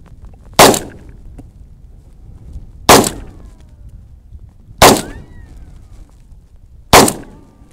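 Four shots from a .22 semi-automatic pistol fired in slow, deliberate succession, about two seconds apart, each a sharp crack with a short tail.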